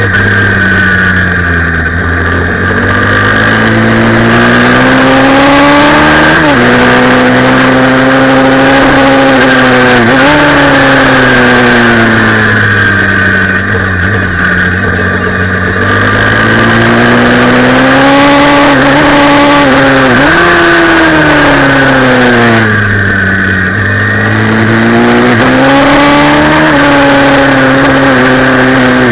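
Pit bike's small single-cylinder engine heard onboard at racing pace, its revs climbing and falling again and again through the corners, with a few abrupt breaks in pitch at gear changes.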